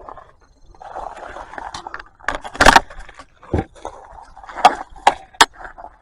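Irregular knocks and clatter of hand tools being handled and set down. The loudest is a sharp knock about two and a half seconds in, with several more sharp knocks in the second half.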